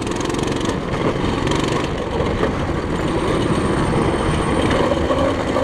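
Coleman CT200U-EX pit bike's small 196 cc single-cylinder four-stroke engine running steadily while the bike is ridden on dirt.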